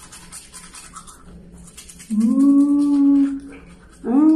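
Manual toothbrush scrubbing in quick strokes, then a steady hummed "mmm" of just over a second starting about two seconds in, and a shorter voiced sound that rises and falls in pitch near the end as the tongue is brushed.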